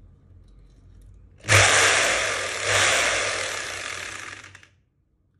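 Makita HR2631F rotary hammer drill's electric motor switched on by its trigger. It starts suddenly, surges again about halfway, then winds down and stops after about three seconds.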